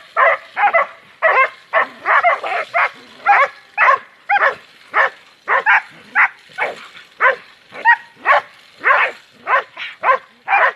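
A dog barking over and over in a rapid, unbroken series of short barks, about two to three a second.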